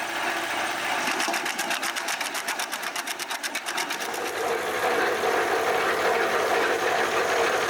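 REMET RSH120 wood chipper running: a rapid, even ticking at about ten a second, then a louder, steadier run from about four seconds in.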